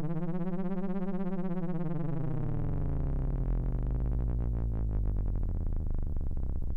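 Low frequency-modulated drone from the Helm software synthesizer: two low sine oscillators cross-modulated, their pitch swept by LFOs. The pitch rises to a peak about a second in and slides back down over the next two seconds, then sits low in a fast, rattling pulse.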